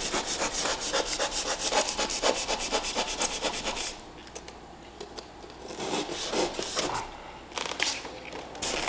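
Rigid foam insulation board being sawn through in fast, even back-and-forth strokes that stop about four seconds in. Quieter scraping and crinkling of the foam follows.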